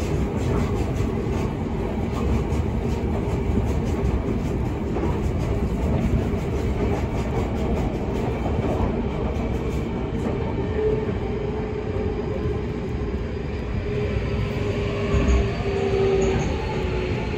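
Running noise inside a Toei Mita Line 6300 series train: wheels on the rails under a steady motor tone. Near the end another train passes close alongside, and the tone drops in pitch.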